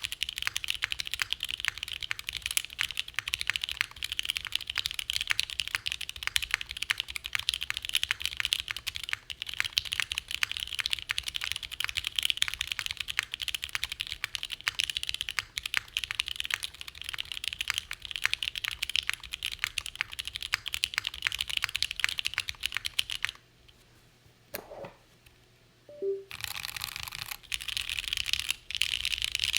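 Continuous fast typing on an ATXKB Moontower v2 custom mechanical keyboard with stock Gateron KS-3 Milky Yellow Pro linear switches, GMK Dolch keycaps and a forged carbon-fibre half-plate. Keystrokes clatter densely, stop for about three seconds near the end, then resume.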